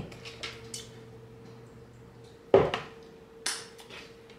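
A whisk clicking and knocking against a mixing bowl while thick batter is worked, with one loud knock about two and a half seconds in and a short scrape soon after. A faint steady hum runs underneath.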